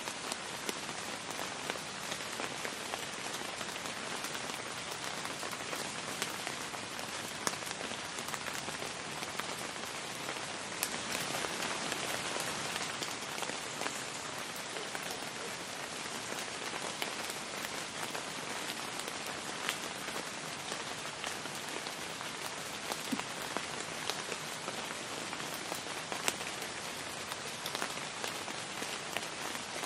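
Steady rainstorm rain falling, with sharp individual drop hits close by. It swells slightly heavier for a couple of seconds about eleven seconds in.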